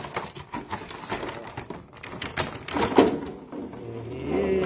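Clear plastic packaging crinkling and crackling in a quick, uneven run of rustles and clicks as a toy robot dog is worked out of its taped bag.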